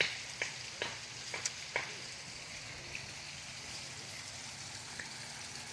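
Steady hiss of water splashing into a garden pond from its fountain outlet, with a few soft clicks in the first two seconds.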